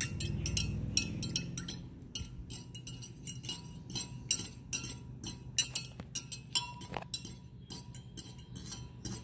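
Metal spoon stirring liquid in a glass measuring cup, clinking against the glass in quick, irregular strokes, several a second.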